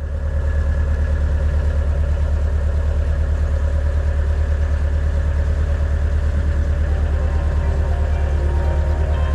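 An engine running steadily with an even, rapid low throb.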